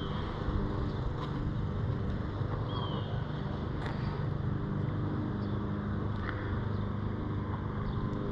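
A jon boat's motor running steadily, a constant hum.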